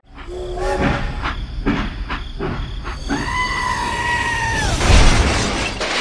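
Edited cartoon sound effects: a run of knocks and clatters, a held whistle-like tone for about a second and a half, then a loud crash about five seconds in as the barn bursts open and crates spill.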